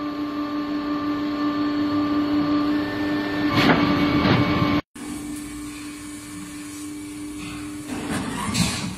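Roll forming machine running as it forms colour-coated steel sheet into a tile-profile roofing panel: a steady motor hum, with a burst of harsher noise about three and a half seconds in. The sound cuts out for a moment near the middle and comes back quieter, with more bursts of noise near the end.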